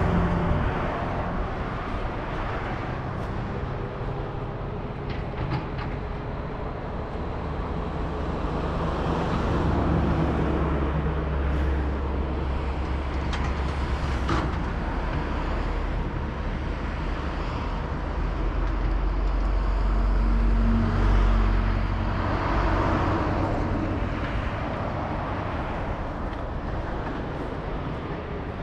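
Outdoor vehicle traffic: a steady low rumble of passing vehicles that swells twice, about a third of the way in and again about three quarters of the way in, as something heavy goes by.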